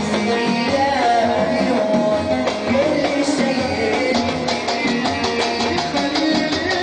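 Live Hijazi wedding-party music: oud, Korg keyboard and hand percussion playing a melody, with the drum strokes coming through more clearly about halfway in.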